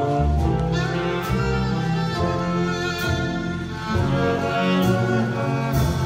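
Live jazz band playing, with violin prominent over trombone, upright bass, piano and drums, and a few cymbal strokes.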